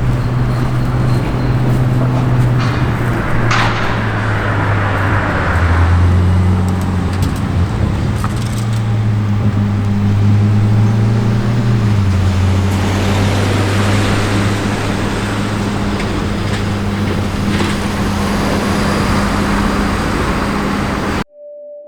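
Car engine running at low revs, its pitch stepping down around six and again around twelve seconds in, with road noise swelling and fading as traffic passes; the sound cuts off abruptly near the end.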